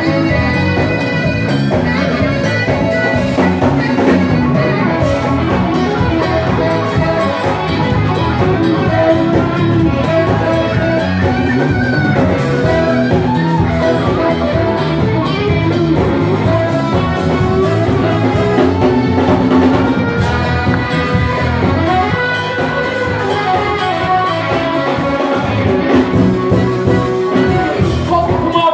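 Live Ethiopian pop band playing loudly: electric guitar, bass guitar, saxophone, drum kit and congas.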